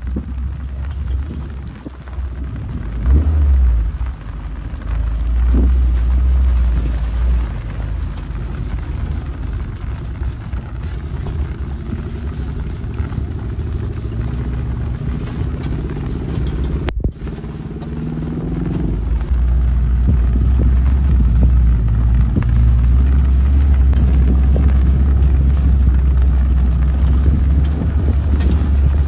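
Open 4x4 jeep driving over a rough lava-gravel track: engine running under a heavy, steady low rumble of the ride, louder in the last third.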